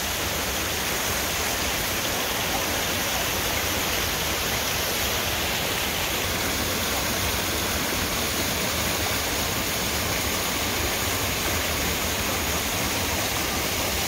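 Waterfall splashing into its plunge pool: a steady, unbroken rush of falling water.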